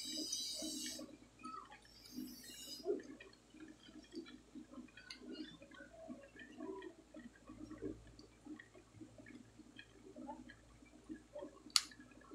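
Faint hiss of solder flux sizzling as a soldering iron melts joints on a circuit board, twice in the first three seconds. Small scattered ticks from handling the board continue, with one sharp click near the end.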